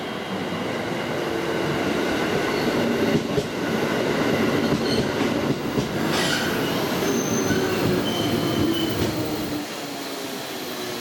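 A JR Central electric multiple-unit train arrives along the platform and brakes. Its running rumble carries knocks over rail joints and faint brake squeals, and the motor whine falls slowly in pitch as it slows. The noise drops off near the end as the train comes almost to a stop.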